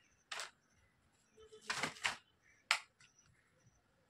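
Potato chips crunching as they are bitten and chewed: a few short, crisp crunches with quiet between them.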